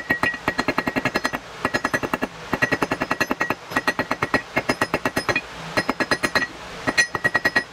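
Rapid light hammer blows on a steel bolt resting on an anvil, about nine strikes a second in runs of one to two seconds with short pauses, each blow leaving a bright metallic ring.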